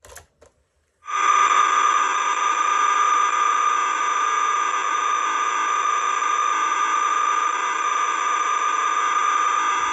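Sony TC-110B cassette recorder's play key clicking down, then about a second in the recorded computer data signal for an NEC PC-8300 program starts from the recorder's speaker: a loud, screechy tone like an old-school modem, held steady without change. It is a program stored as audio on the cassette, the signal the computer reads to load it.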